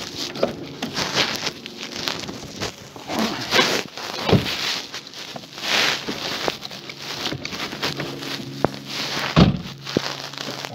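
Handling noise from a phone being moved about with a coiled charging cable in hand inside a car: irregular rustling, rubbing and clicks, with two dull thumps about four and nine seconds in.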